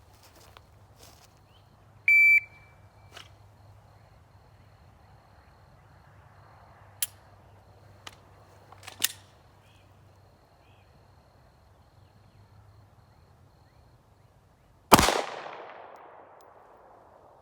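A shot timer beeps once. A few sharp clicks follow as a malfunction in the Glock 43 9mm pistol is cleared, then a single loud pistol shot rings out about 13 seconds after the beep.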